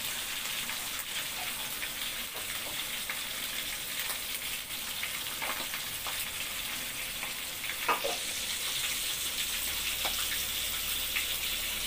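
Slices of beef for empal frying in hot oil in a steel wok: a steady sizzling hiss with scattered crackling pops, one louder pop about eight seconds in.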